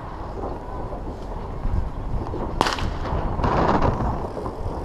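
A single sharp firework bang about two and a half seconds in, followed by a short rushing noise, over the steady low rumble of a fat bike riding on snow.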